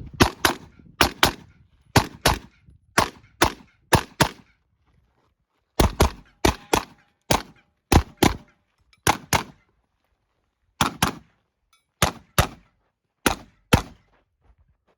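AR-15-style rifle fired in rapid pairs of shots (double taps), about one pair a second, with two short pauses of about a second, around five seconds in and around ten seconds in.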